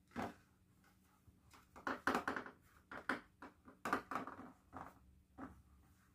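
Hands pressing and stretching crescent-roll dough in a metal baking pan: a handful of short scuffs and light knocks against the pan.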